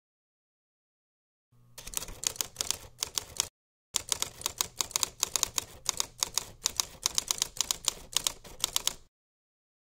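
Typewriter sound effect: rapid key clacks that start about two seconds in, pause briefly, then run on steadily and stop about a second before the end.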